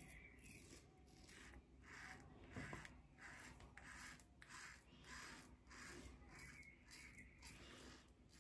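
Edwin Jagger 3one6 safety razor with a Tatara blade scraping through lathered stubble in short, faint strokes, about two a second, on the first pass with the grain.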